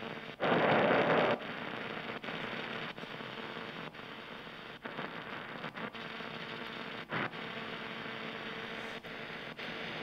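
AM-band static hissing from the Sangean WR-11 desktop radio's mono speaker as the tuning dial is turned, with no station coming in: poor AM reception. The hiss swells louder for about a second near the start and briefly around seven seconds in, with a few short dropouts.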